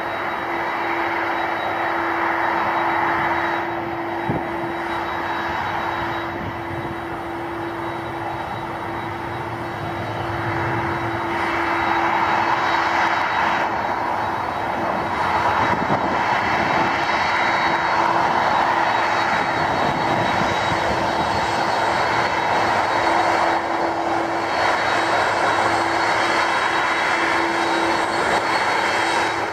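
Four turbofan engines of a Boeing 747-400 freighter running at taxi power: a steady jet whine and hum over a rushing noise. It dips slightly a few seconds in and grows a little louder again after about ten seconds.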